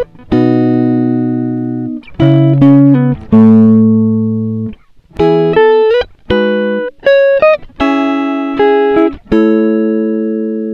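Intro music: a run of pitched notes and chords, each struck and left to ring and fade.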